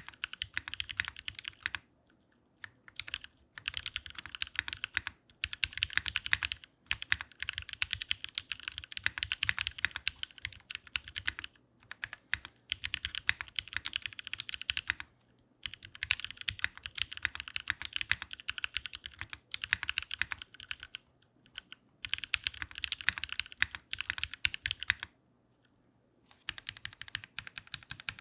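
Fast typing on a WKL Sirius 60% mechanical keyboard with lubed NovelKeys Cream linear switches and GMK keycaps: quick runs of keystrokes broken by a few short pauses.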